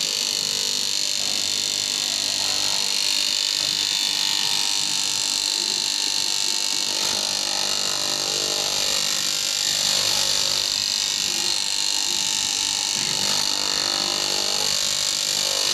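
Electric cloth-cutting machine running steadily with a high, even whine.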